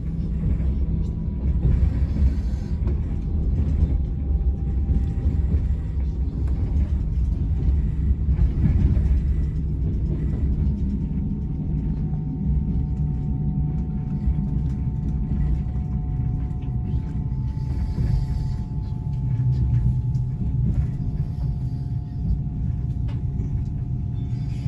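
Train running, heard from inside the carriage: a steady low rumble, with a faint steady whine coming in about halfway through.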